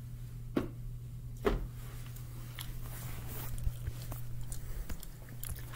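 Handling noise as a large framed board is lifted and moved: two knocks about a second apart, then scattered small clicks and rustles, over a steady low hum.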